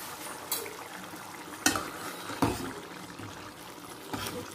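Prawn curry with coconut paste bubbling at the boil in a kadai, with a few sharp knocks as a metal ladle stirs it.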